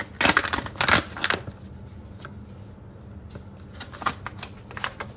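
Packaging being handled: a burst of rustling and tapping in the first second and a half, then a few scattered light clicks, over a faint steady hum.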